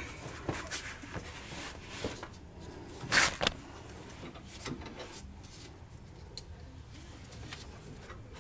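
Scattered light metal clicks and knocks from hand work on a truck's front leaf spring hardware, with a louder double clink about three seconds in.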